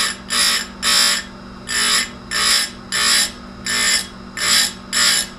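Tecomec Jolly Evo electric chain grinder running with a steady motor hum, its wheel brought down onto the chainsaw chain in quick, even strokes. Each stroke gives a short, bright grinding hiss, about two a second.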